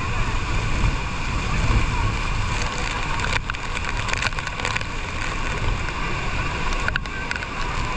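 Tour boat out on the river below Niagara Falls: a steady low rumble of rushing water and wind, muffled through a waterproof camera case, with a few sharp clicks in the middle and near the end.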